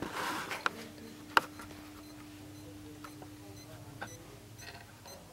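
Faint ticking from inside a Nikai NTV3272LED5 LED TV, in step with its blinking red power light: the power supply keeps cutting out and restarting, which the repairer takes for a choking power supply, perhaps from a short somewhere. A few louder clicks, the sharpest about a second and a half in, and a low steady hum that stops about four seconds in.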